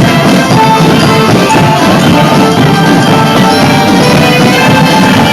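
Loud music with a melody over drums and percussion.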